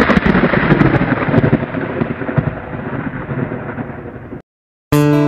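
A loud, crackling rumble like thunder that slowly fades and cuts off abruptly near the end. After a brief silence, strummed acoustic guitar music begins.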